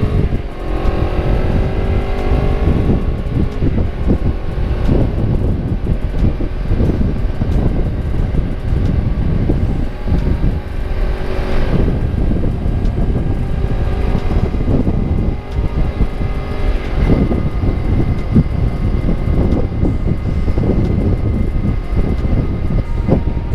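Honda CBR250RR motorcycle running through a KEA Speed aftermarket exhaust while being ridden, its engine note rising and falling with the throttle and gear changes, over a constant low rumble of wind and road noise.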